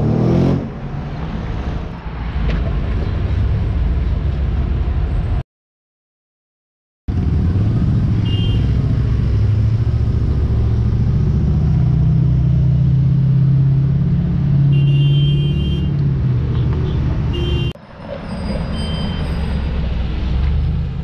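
Cars driving past one after another, engines running over road noise. In the middle a deep engine note swells and holds for a few seconds as a classic Plymouth Barracuda drives by. The sound cuts out completely for about a second and a half about a quarter of the way in.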